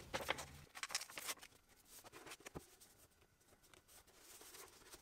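Faint paper rustling and light ticks as loose sheets are pulled away from a glued paperback text block and the block is handled. The sounds cluster in the first second and a half, with one light tap about two and a half seconds in.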